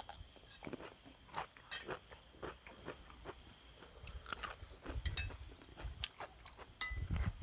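Someone eating close to the microphone: quiet chewing with scattered small clicks and soft mouth sounds.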